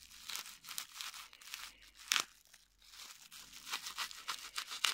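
Crinkly plastic wrapping rustling and tearing as a small knife is worked through the tape around a package, with sharper crackles about two seconds in and near the end.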